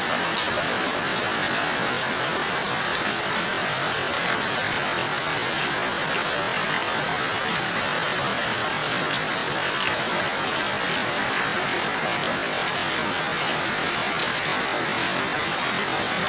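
Heavy rain falling steadily onto standing water and broad wet leaves: an even, unbroken hiss with faint scattered drop ticks.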